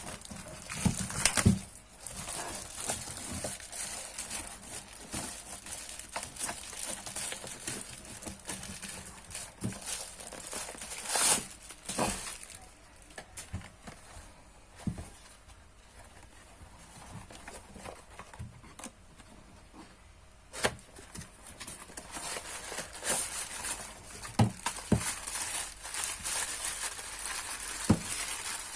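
Plastic parcel packaging being crinkled, handled and torn open, in irregular rustles and sharp crackles, quieter for a few seconds around the middle.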